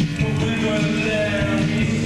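Music: sustained low notes under a higher melody line.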